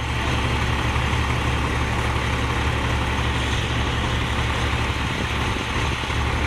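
A large vehicle engine idling steadily: a deep low hum under an even rush of noise.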